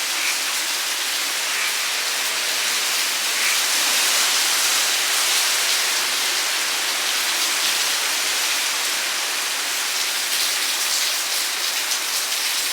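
Heavy hurricane rain pouring down steadily as a dense, even hiss.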